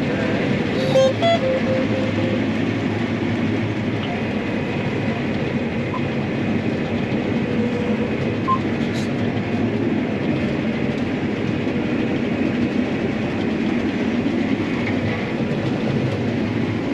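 Combine harvester running steadily, heard from inside the cab as it sets off in gear 2 to start cutting soybeans. A brief cluster of short beeps sounds about a second in.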